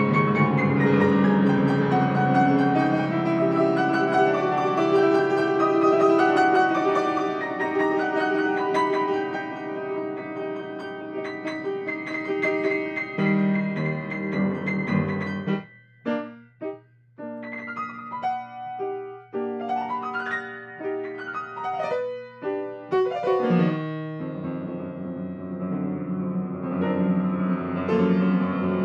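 Grand piano played solo in free improvisation: thick, ringing chords at first, then from a little past halfway short detached chords with brief silences between them, filling out again near the end.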